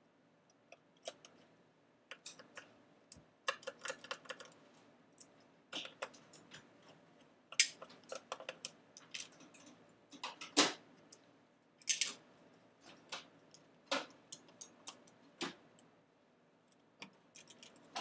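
Irregular small clicks and taps of a precision Phillips screwdriver turning out the little screws on an iBook G4's plastic bottom case, with a few louder knocks among them.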